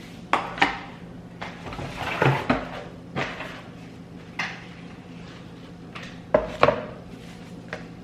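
Small hard objects being handled and set down: a series of irregular light knocks and clatters, with the loudest pair about six and a half seconds in, over a steady low hum.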